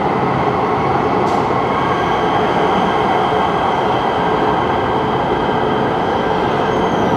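LA Metro light rail train running in an underground subway station: a steady loud rumble with several high, even whining tones from the train's motors.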